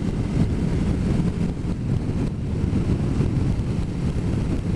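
Motorcycle running at road speed, a steady engine drone under heavy wind noise on the microphone.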